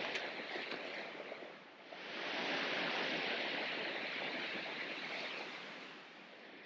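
Gusting wind, an even rushing noise in two surges: a short one, then a longer one that builds about two seconds in and slowly dies away.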